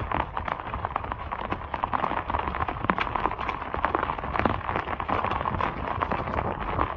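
Heavy monsoon rain falling, with many sharp drop ticks close on the microphone, over muddy runoff water flowing down an earthen swale channel.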